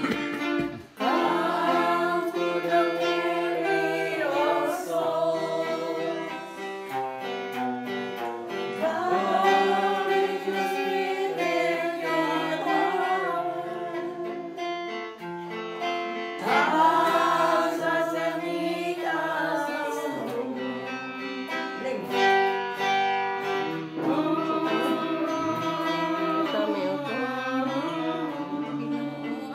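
Singing to guitar accompaniment: a song sung in phrases of a few seconds each, over a steadily played guitar.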